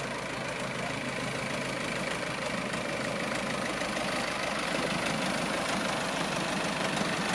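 Train's diesel engine running, with a steady low hum under a broad rumble that grows gradually louder.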